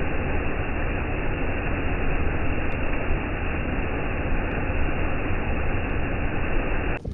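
Steady, loud rushing noise without pitch, heaviest in the low end, cutting in and out abruptly.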